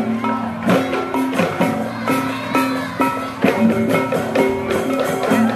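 Balinese gamelan music: sustained ringing metal tones over sharp, repeated percussion strikes.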